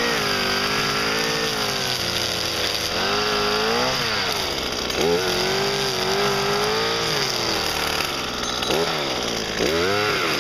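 Small two-stroke petrol engine of a garden power tool running, its pitch dropping and climbing again several times as the throttle is eased off and opened up.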